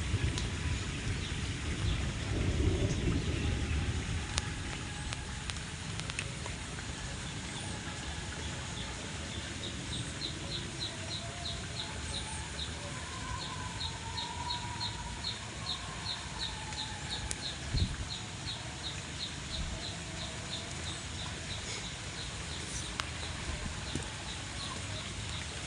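Outdoor ambience: a steady background hiss, with a high, rhythmic chirping of about two or three chirps a second starting about ten seconds in.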